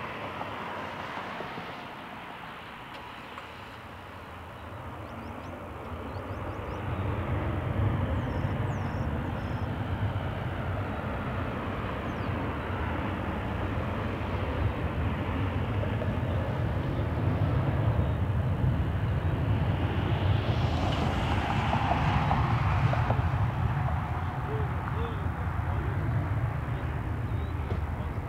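Jet engines of an American Airlines Boeing 737-800 under power on the runway, the noise swelling from about six seconds in to a loud, steady rumble that peaks a little after twenty seconds, as on a takeoff roll.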